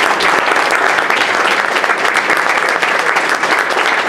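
An audience applauding: many people clapping in a dense, unbroken stream.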